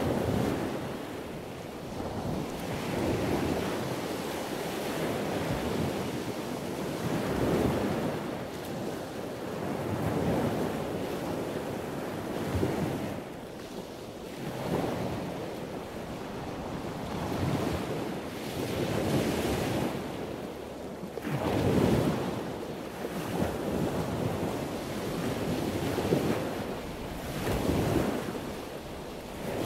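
Ocean surf breaking and washing up the shore, swelling and easing every few seconds, with wind buffeting the microphone.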